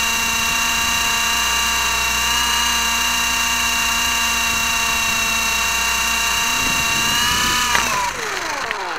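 A small camera drone's motors and propellers running with a steady high whine. Near the end it hits the ground with a thump, and the whine drops steeply in pitch as the motors wind down.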